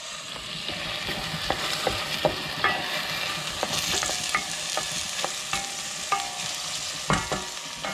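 Food frying in a pan, a steady sizzle, with a utensil stirring and clicking against the pan at irregular intervals.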